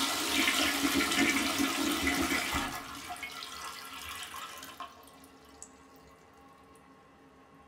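Toilet flushing: a loud rush of water that eases off after about three seconds into a quieter trickle, fading out about five seconds in.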